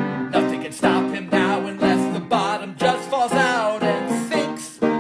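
Man singing with his own piano accompaniment: chords struck about twice a second under a wavering sung line that fades out shortly before the end.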